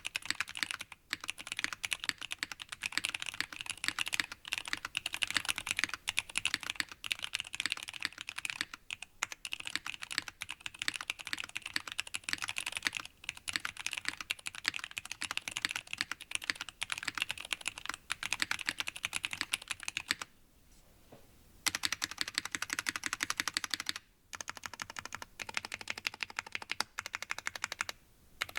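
Fast, continuous typing on a Parallel Limited Portal 65% mechanical keyboard: o-ring-mounted FR4 plate, Zealios v2 tactile switches lubed with 205g0, GMK keycaps. The clacking breaks off briefly a little after 20 seconds, again around 24 seconds, and just before the end.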